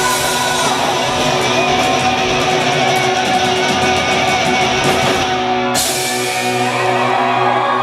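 Live rock band playing loud and steady, with guitars and a drum kit. The brightest top end cuts away abruptly a little before six seconds in.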